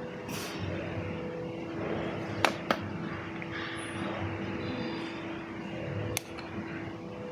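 Electric drill running steadily at one constant pitch, with three sharp clicks: two close together near the middle and one near the end.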